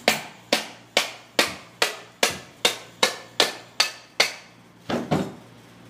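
Rubber mallet striking a PVC sleeve to knock it off a filter piston: a steady run of about a dozen sharp knocks, between two and three a second, then a short pause and two quick knocks near the end.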